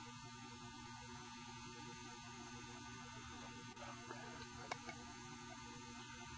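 Low steady electrical hum, with a few faint clicks between four and five seconds in.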